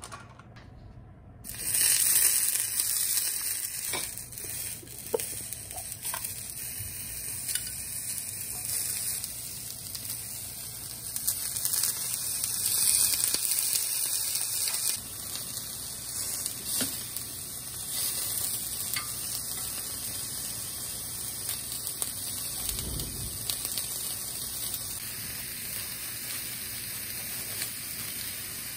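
Sausage and broccoli sizzling in hot oil in a small rectangular tamagoyaki pan. The sizzle starts suddenly about a second and a half in as the food goes into the oil, then runs on steadily with a few light clicks of the food being turned.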